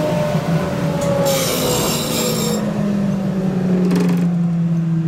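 Laguna C-Flux 3 hp cyclone dust collector running with a steady hum whose pitch slowly sinks, with a burst of hiss about a second and a half in.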